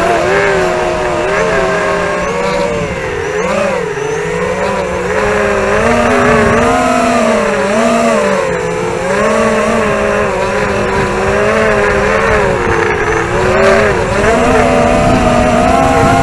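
Brushless motors (DYS 2204) and tri-blade props of a ZMR250 racing quadcopter in flight, heard from the quad's own onboard camera: a loud buzzing whine of several close tones that rise and fall together with the throttle.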